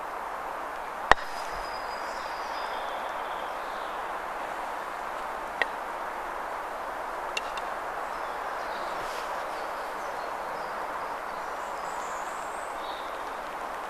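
A croquet mallet strikes a ball once, a sharp clack about a second in. Fainter knocks follow midway, over a steady background hiss with a few faint bird chirps.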